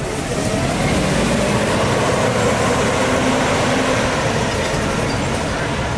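Disneyland parking tram in motion: steady engine and rolling road noise, with a faint steady hum running through it.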